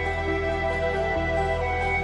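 Slow, soft background music with sustained chords over a held bass note that changes about a second in.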